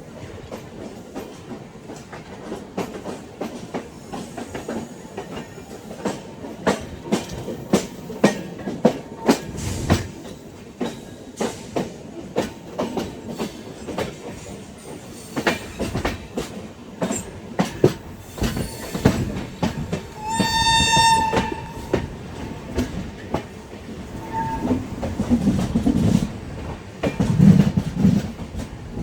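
LHB passenger coach wheels clattering over the rail joints in quick, irregular clicks. About two-thirds of the way through, the WAP7 electric locomotive's shrill horn sounds for about a second, followed a few seconds later by a brief second toot.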